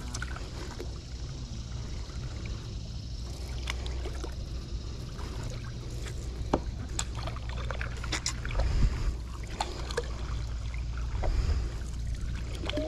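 Kayak paddling: the paddle blade dipping and water trickling and dripping off it, with scattered small clicks and splashes over a steady low rumble.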